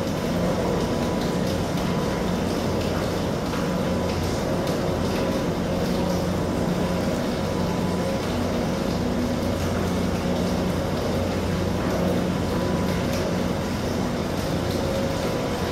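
Niederfinow ship lift's trough drive machinery running as the trough is lowered: a steady mechanical drone with several held hum tones, low down and higher up, over an even noise.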